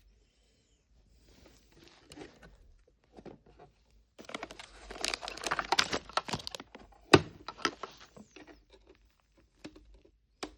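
Plastic packaging crinkling and rustling as a small toy is unwrapped by hand. The crinkling is densest in the middle, and there is a sharp click of plastic about seven seconds in.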